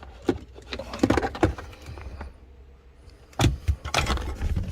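Clicks and clatter of small hard parts and tools being handled, in a cluster about a second in and again near the end, over a low steady hum.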